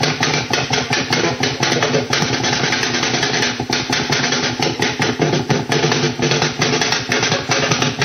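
Shortwave over-the-horizon-radar signal of the 'Woodpecker' type received in AM mode: a rapid, even train of pops at about ten a second over the hiss and hum of the crowded band.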